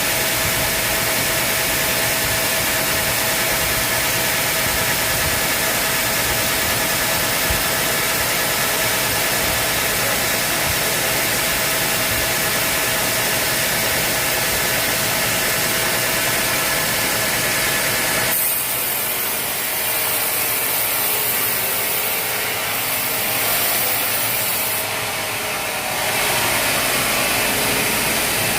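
Sawmill machinery running and sawing timber: a loud, steady mechanical noise with a constant whine. The sound changes abruptly about two-thirds of the way through and switches back near the end.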